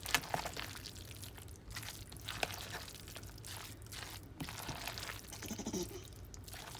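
A spoon stirring a thick macaroni salad dressed in mayonnaise in a bowl: irregular wet squelching strokes with a few sharp clicks, the loudest just after the start.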